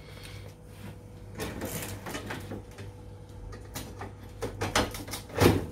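Plastic freezer drawer pulled open and a metal pot lifted out of it: scraping and rattling, scattered clicks, and a loud knock near the end. A faint steady hum runs underneath.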